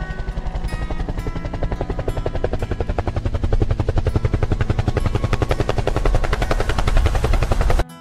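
Helicopter flying low overhead, its rotor beating in a fast, even rhythm that grows louder, then cuts off suddenly near the end.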